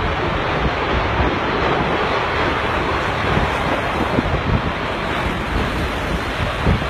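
Strong storm wind blowing across a phone's microphone: a steady rushing noise with short, gusty low thumps near the end.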